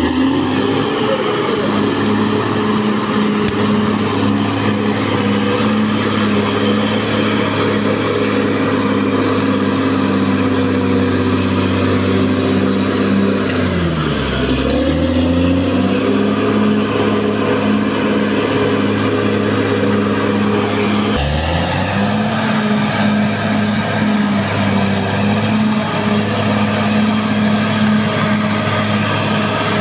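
Caterpillar D6R XL bulldozer's diesel engine running loud and steady, its pitch sagging and recovering twice, about halfway through and again about two-thirds of the way through.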